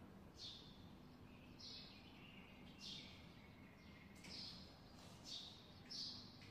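Faint bird calls: short, high, downward-sliding chirps repeated roughly once a second.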